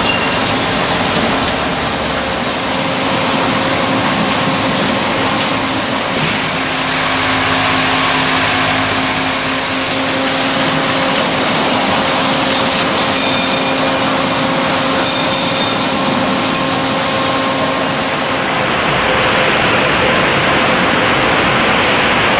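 Automatic car wash running: a loud, steady rushing noise of spray and machinery over a low mechanical hum, with two brief high chirps about two seconds apart past the middle.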